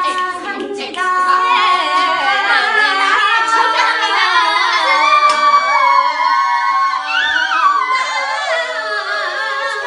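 A group of young women singing together, several voices overlapping, getting louder about a second in.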